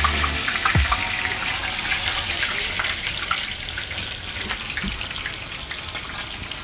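Wet fish pieces frying in hot oil in a skillet: a steady sizzle full of small crackling pops of spitting oil.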